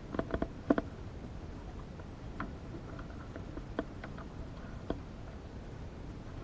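Light knocks and clicks of boat hulls bumping: a quick cluster of four or five near the start, then a few single taps spaced a second or more apart.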